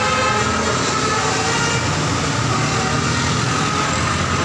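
A vehicle's engine running steadily amid road noise, with a held horn tone from a multi-tone basuri horn fading out in the first second.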